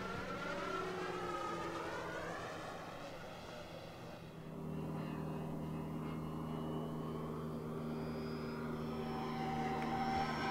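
Electric Hangar 9 Fun Scale P-47 Thunderbolt RC model flying past on 4 cells with its stock 14x12 wood propeller. The motor-and-propeller drone falls in pitch as the plane moves away, dips and steadies about halfway through, then rises again near the end as it comes back around.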